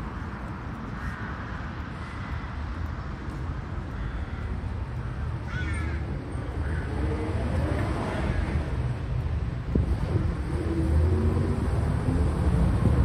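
City street ambience: traffic running with a low rumble that grows louder toward the end, and a bird calling briefly about six seconds in.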